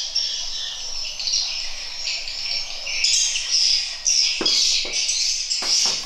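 Edible-nest swiftlets twittering densely and continuously in high-pitched chirps, with a couple of sharp clicks about four and a half and near six seconds in.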